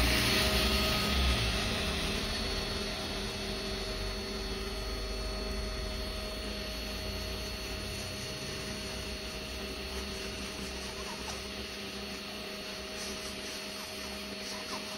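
Electric podiatry nail drill (micromotor handpiece) running at a steady speed with a constant whine, a little louder in the first couple of seconds.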